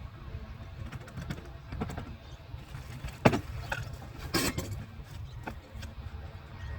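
A few sharp knocks and clanks, the loudest about three seconds in and another cluster a second later, over a steady low rumble.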